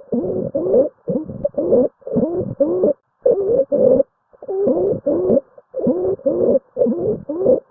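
Stridor: harsh, pitched noisy breathing from a narrowed upper airway, about two breaths a second, each with a wavering, crowing tone. It is the sign of an obstruction in the larynx or trachea.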